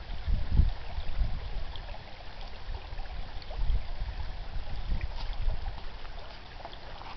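Small creek babbling and trickling over its bed, with irregular low rumbling surges underneath.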